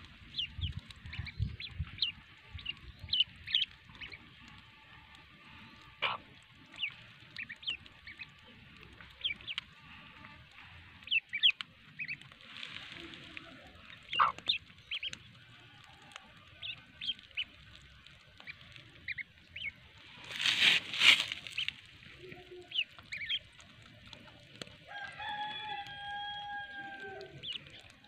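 Ducklings peeping with many short, high, falling chirps, mixed with the clucking of the hen that broods them. About twenty seconds in there is a brief loud rustle, and near the end a chicken gives one long drawn-out call.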